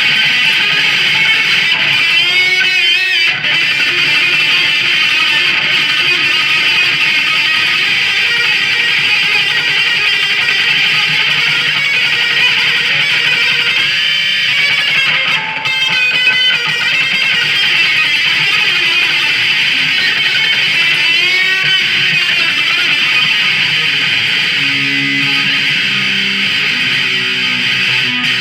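Ibanez Artcore electric guitar played through an amplifier, a continuous run of notes with several wavering string bends.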